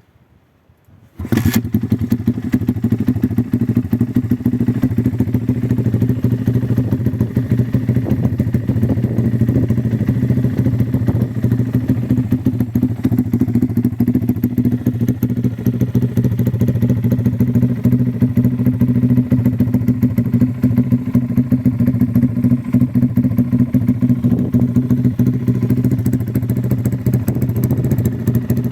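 Engine with a newly fitted muffler starting about a second in, then running steadily and loudly at idle.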